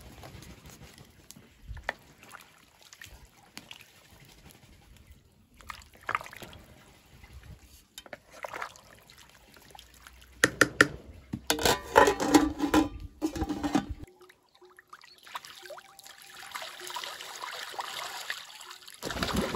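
A wooden spoon stirring a pot of bone broth, the broth sloshing and clattering against the pot for a few seconds about halfway through. After a sudden change, a duck splashes as it bathes in a shallow pool of water, a steady wash of splashing.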